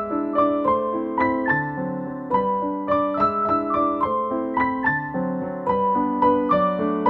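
Background piano music: a melody of notes struck a few times a second over held chords.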